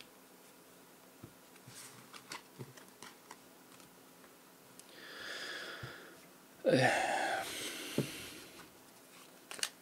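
A person drawing a long, audible breath in, then letting it out as a breathy, partly voiced sigh, with a few faint clicks before it.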